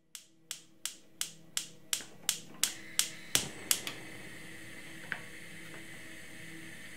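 Gas hob's electric igniter ticking about three times a second, about a dozen clicks, until the burner lights; then the gas flame burns with a steady hiss.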